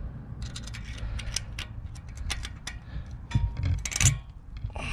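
Small metallic clicks and scrapes of a caliper-cover mounting clip being handled and hooked onto a Brembo brake caliper, with a few louder knocks about three to four seconds in.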